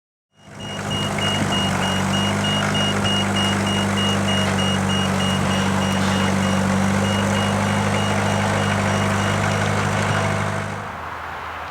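A machine running steadily with a strong low hum and a thin high tone over it. It starts abruptly and falls to a lower level near the end.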